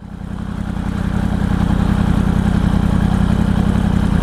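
Yamaha YZF-R1 sports bike's inline-four engine idling steadily while the bike stands still, fading in over the first second or so.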